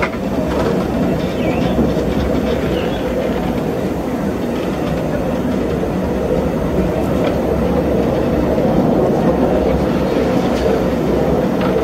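Steady running noise of a 1935 Orenstein & Koppel two-foot-gauge steam locomotive under way, heard from its cab, with its wheels on the rails.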